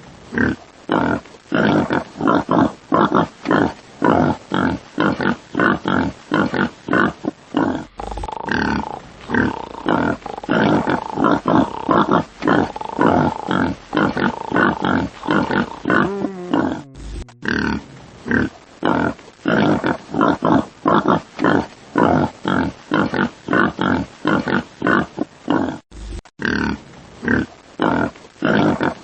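Pig grunting in a quick, steady rhythm, about two or three grunts a second, with short breaks roughly every nine seconds as the clip repeats. Through the middle a drawn-out higher squeal runs under the grunts and falls away at its end.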